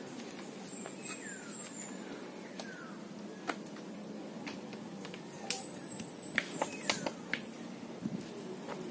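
Outdoor ambience under trees: a steady low background hum, a bird giving short falling whistles in the first few seconds, and a cluster of sharp clicks and taps from about five to seven seconds in.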